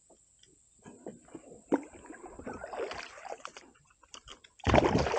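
Clicks, knocks and rustling in a fishing kayak, with a loud, short burst of noise near the end.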